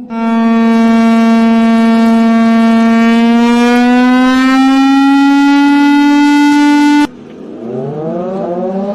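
Air raid siren wailing at a steady high pitch that creeps slowly upward, then cut off abruptly about seven seconds in; a second siren tone then starts low and rises in pitch as it winds up.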